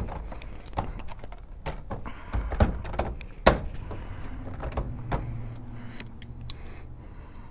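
Scattered light clicks and knocks of handling at a reloading bench as a caliper and a loaded 40 S&W cartridge are picked up and the caliper is set on the round to measure its overall length, with a short scrape about two and a half seconds in.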